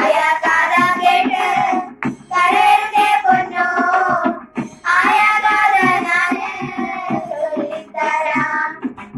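Girls singing a Malayalam folk song (naadanpaattu) together, in four sung phrases with short breaks between them.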